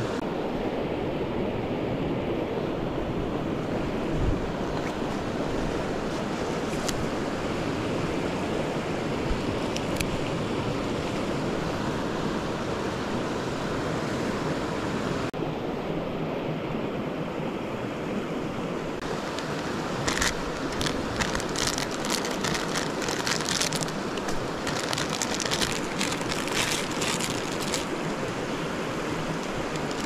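Mountain stream rushing steadily. From about two-thirds of the way in, a run of sharp crackles and clicks rises over it.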